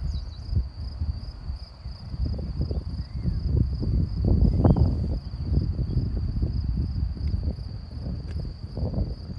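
A steady high-pitched insect trill, like crickets in the grass, running through uneven gusts of wind buffeting the microphone; the low wind rumble is the louder of the two, strongest around the middle.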